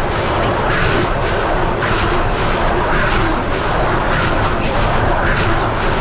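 John Deere 6155R tractor's six-cylinder diesel engine running steadily under load, heard from inside the cab, with the C440R round baler working behind it and a light repeating clatter.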